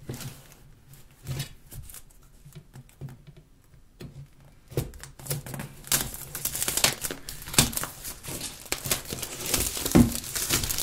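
A knife scratching and slitting the plastic shrink-wrap on a phone box, faint at first. From about five seconds in the film is torn and peeled off, crinkling and crackling.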